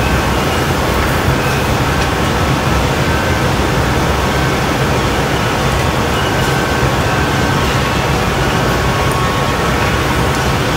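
Steady low roar of a glassblowing hot shop's equipment, the gas burners of the furnace and glory hole and their blowers, with a faint steady hum over it.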